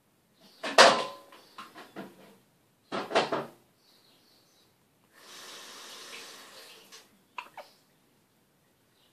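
Newborn baby sneezing and hiccuping: short, sharp bursts, the loudest about a second in and another about three seconds in. Smaller hics follow, along with a soft rushing noise for a couple of seconds and two small hics near the end.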